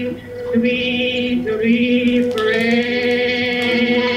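Unaccompanied wordless singing in a slow chant: one note is held steadily throughout while a lower voice sings in short phrases beneath it.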